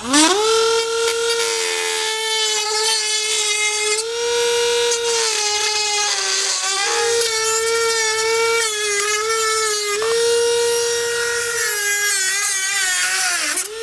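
Dremel rotary tool with a cutoff wheel spinning up to a steady high whine and cutting through a thin plastic shroud, its pitch dipping briefly now and then as the wheel bites into the cut.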